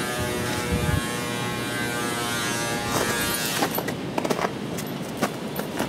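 Electric wood planer running with a steady, many-toned whine that fades out about halfway through. Then a string of sharp clicks and knocks.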